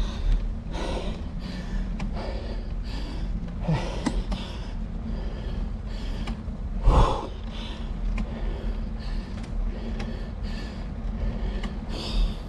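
A cyclist breathing hard in rapid, heavy breaths from the effort of a steep climb, with one louder gasp about seven seconds in, over a steady low rumble.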